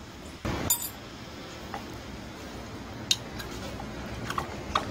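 Handling of a small engine and a steel workshop tool on a bench: a dull knock in the first second, then a few faint light clicks, over a steady low background.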